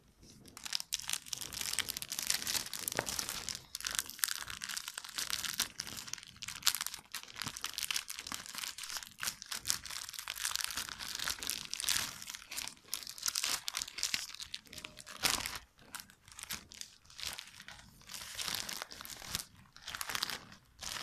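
Trading card starter pack packaging being torn open and handled: crinkling and crackling of wrapping and card that comes and goes in short spells.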